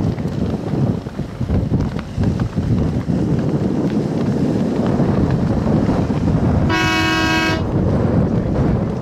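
Wind buffeting the microphone on the water, with a single short horn blast just under a second long about seven seconds in, the kind of horn sounded as a boat crosses the finish line.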